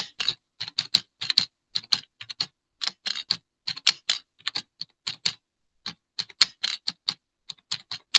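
Typing on a computer keyboard: a run of irregular keystroke clicks, several a second, with short pauses.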